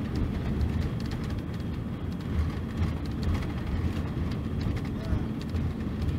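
Mercedes-Benz OC-500RF-1842 coach's diesel engine running steadily: an unbroken deep drone.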